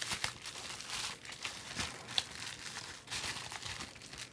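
Packaging crinkling and rustling by hand as the parts of a miniatures kit are taken out, with scattered small clicks and taps.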